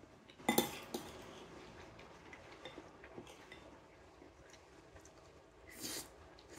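Metal spoon clinking and scraping against a ceramic bowl while scooping up rice and sauce, with a sharp clink about half a second in and lighter taps after it. Near the end, a brief noisy sound as the spoonful is eaten.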